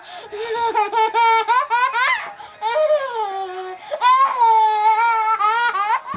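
A baby squealing with laughter: a run of long, high-pitched wavering shrieks and giggles.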